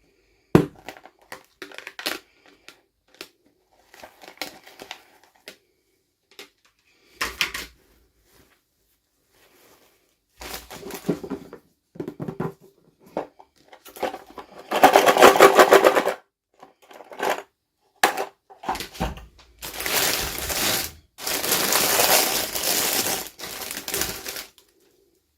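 Hands unboxing a plastic toy package: scattered clicks and taps, then two long bouts of dense crackling, the second lasting about five seconds near the end.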